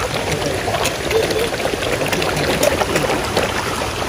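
Water splashing and slurping as a dense crowd of koi jostle at the pond surface for food, many small irregular splashes over a steady wash of moving water.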